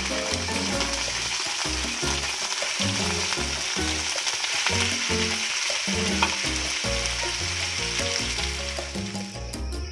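Raw chicken pieces sizzling in hot oil with garlic and onion in a wok, a steady hiss that dies down near the end, with one sharp clink about six seconds in. Background music plays underneath.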